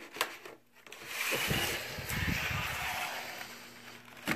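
Clear plastic sheeting rustling and crinkling as a plaster volcano model sitting on it is moved across a table. There is a click near the start and soft knocks as the models are set down.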